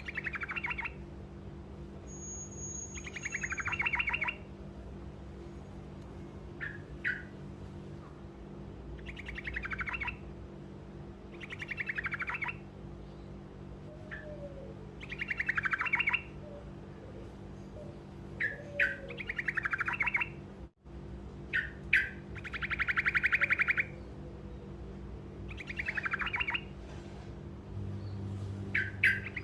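Truco bird singing short rolling trills, each about a second long and repeated every two to three seconds, with brief chips in between. A steady low hum runs underneath.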